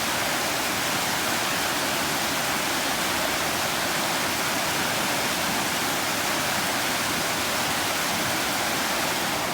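Floodwater in a storm-swollen creek rushing past steadily, an even, unbroken sound of fast-moving water.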